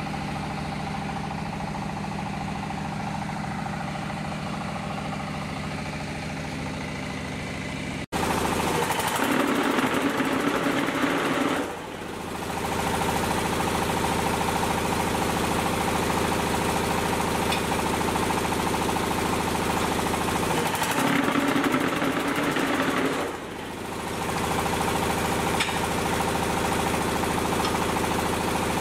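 Diesel engine powering a hydraulic concrete hollow block machine, running steadily. About eight seconds in it becomes louder, and twice a spell of heavier rattling noise lasting about three seconds rises over it as the block machine works.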